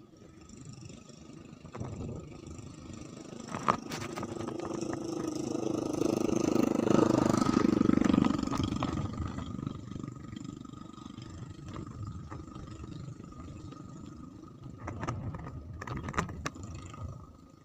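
An engine passing by: its sound swells over several seconds to its loudest about halfway through, then fades away, with a few faint clicks.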